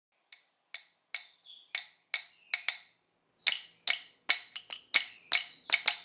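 Sharp, dry percussion clicks opening a song's intro, about two a second at first, then after a short gap near the middle coming faster and busier, with no singing yet.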